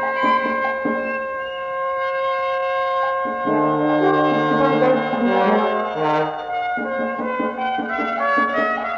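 A small instrumental ensemble playing contemporary classical chamber music. Several held notes overlap at once, a low sustained note enters in the middle, and a few sharp attacks come near the middle and toward the end.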